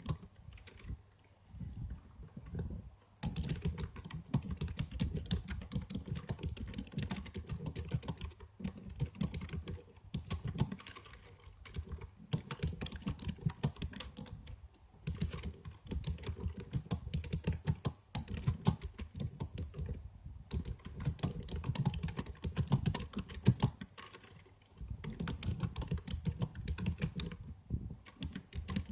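Typing on a computer keyboard: rapid runs of key clicks lasting a few seconds each, broken by short pauses.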